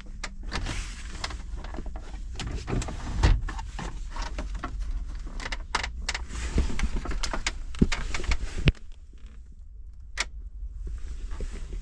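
Plastic dashboard console trim being pulled and handled: rustling, scraping and a string of clicks and knocks as the panel and its clips come loose. It goes quieter after about nine seconds, with one sharp click a second later.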